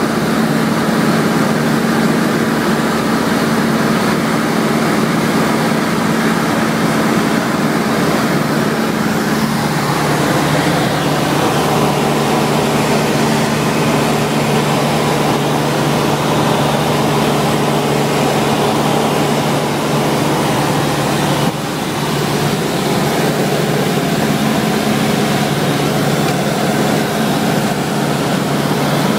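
A Cessna 172SP's four-cylinder Lycoming engine and propeller droning steadily in cruise, heard inside the cabin. The drone's pitch drops a little about ten seconds in.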